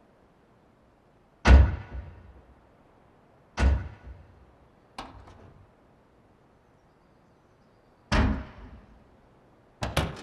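Car doors being shut, a series of heavy thuds a second or two apart. The first is the loudest, and the last comes as a quick double.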